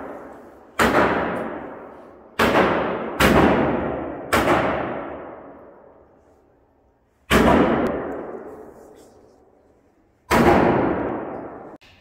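Six shots from a Taurus Raging Hunter .357 Magnum revolver with a ported barrel, fired at uneven intervals: three close together in the first few seconds, then two more about three seconds apart. Each is a sharp crack followed by a long echoing decay.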